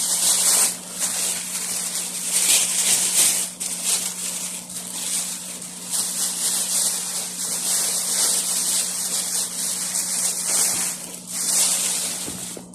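Irregular rustling and crackling of packaging as a shipping box of aquarium plants is unpacked by hand. A steady low hum runs underneath.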